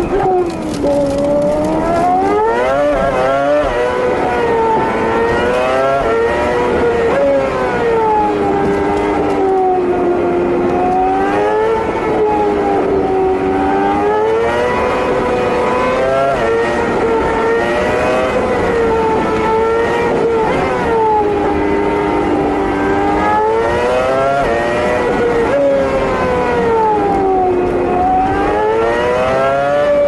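A Ferrari's engine heard from inside the cabin at high speed, its note rising and falling in smooth swells every few seconds, over steady road noise.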